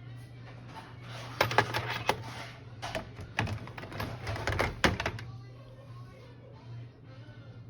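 A burst of sharp, irregular clicks and clacks, about a dozen over three and a half seconds, from pieces of a 1/2-inch socket set and its case being handled, over background music with a steady low hum.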